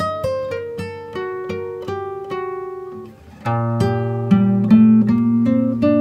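Acoustic guitar music: plucked notes ringing and decaying. A phrase fades out about halfway, then a fuller, louder passage begins with low bass notes.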